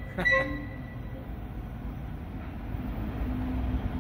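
Distant diesel locomotive rumbling steadily as it approaches the station. A brief high toot sounds just after the start and is the loudest thing heard.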